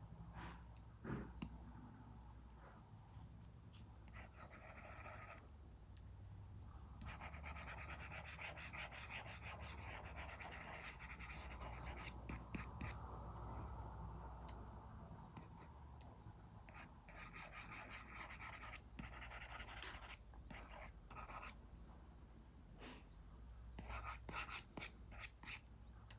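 Apple Pencil tip scratching across a paper-like matte screen protector on an iPad, in drawing strokes of varying length with short pauses between them and a few light taps. The longest stroke runs from about seven to twelve seconds in.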